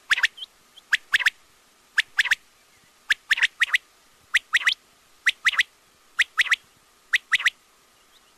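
Quail (batair) calling: short, sharp, whistled notes in quick phrases of about three, repeated roughly once a second.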